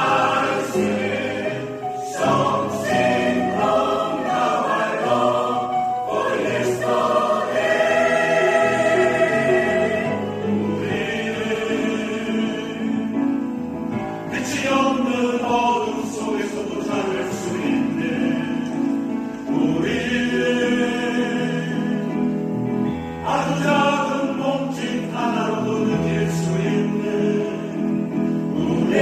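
A choir singing a song, phrase after phrase.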